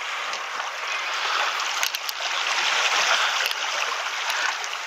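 Shallow seawater sloshing and trickling among rocks in an intertidal pool: a steady watery hiss that swells a little midway.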